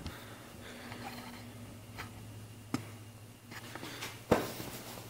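Quiet workshop room tone with a steady low hum. A few faint clicks come around two and three seconds in, and one sharper knock about four seconds in.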